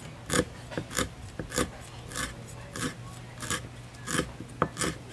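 A steel cleaver chopping green herb leaves on a round wooden chopping block. The blade strikes through the leaves into the wood in a steady rhythm, about eight chops roughly two-thirds of a second apart, with lighter taps between them.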